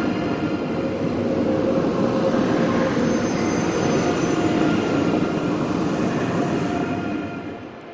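An ICE high-speed electric train passing close by as it pulls out of the station: a steady rumble of wheels on the rails with a few steady whining tones over it. The sound drops away near the end as the last car goes past.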